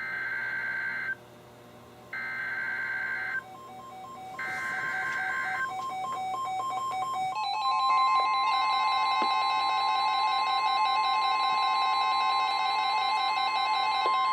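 NOAA Weather Radio emergency alert: three SAME header data bursts, harsh buzzing chirps about a second long with gaps between, mark the start of a flood warning. Then comes the steady 1050 Hz warning alarm tone, while a crowd of weather radios set off their own beeping alert alarms over it.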